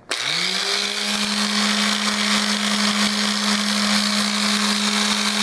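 Electric mouse sander switched on, its motor spinning up within a fraction of a second to a steady hum with hiss. It runs evenly while its pad sands the edge of a balsa wood dragster body.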